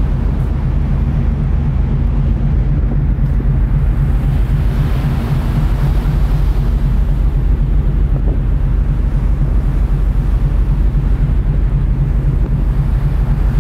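Ferry engines droning as a steady low hum, with wind rushing over the microphone on the open deck; the rushing swells briefly about five seconds in.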